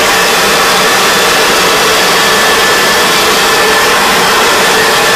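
Leaf blower running steadily: a loud rush of air with a steady whine, blowing the air stream that holds the ball aloft.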